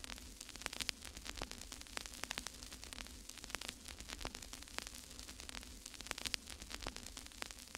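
Faint crackling static: many irregular clicks and pops over a low, steady hum.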